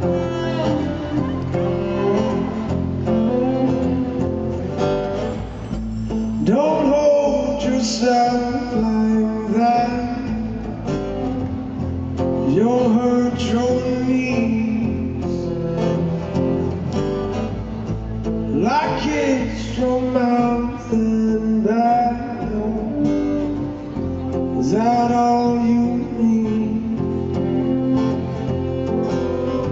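Live song: a man singing over an acoustic guitar, strummed steadily, with sung phrases rising over the chords every few seconds.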